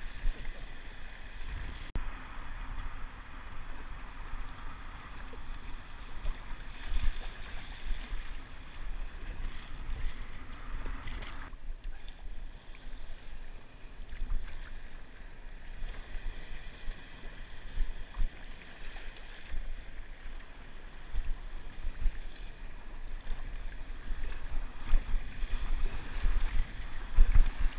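Sea water sloshing and washing around a kayak paddled through small breaking waves, with wind buffeting the microphone in irregular low rumbles.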